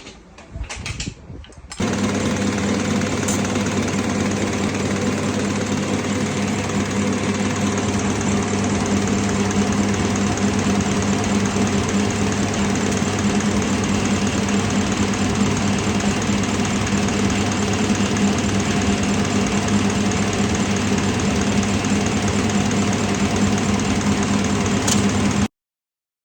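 A machine running steadily with a constant hum, starting abruptly about two seconds in and cutting off suddenly near the end.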